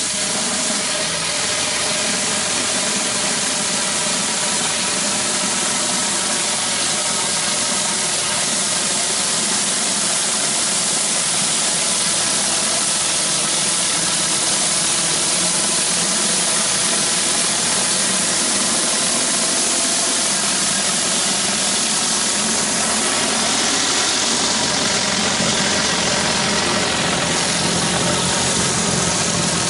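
Pressure washer's engine running steadily, with the even hiss of water jetting from a 14-inch B.E. Whirlaway surface cleaner as it is worked over concrete.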